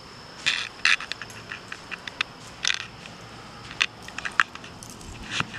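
Footsteps: a dozen or so irregular, sharp crunches and clicks underfoot, the loudest near the middle and just before the end.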